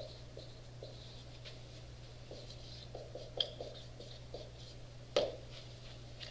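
Marker writing on a whiteboard: faint short strokes and squeaks, with one sharper tap about five seconds in, over a steady low hum.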